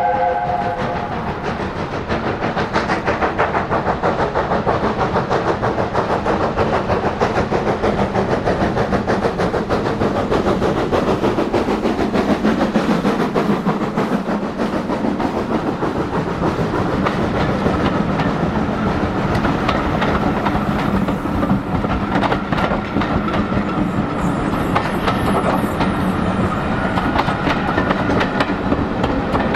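USATC S160 2-8-0 steam locomotive approaching and passing close by: a chime whistle cuts off just as it begins, then a quick run of exhaust beats and rod clank. The coaches behind clatter over the rail joints near the end.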